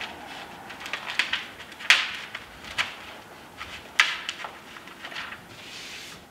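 Tyvek housewrap and flashing tape crinkling and rustling as they are handled and pressed into place by hand. It comes as irregular crackles, with two sharper ones about two seconds and four seconds in.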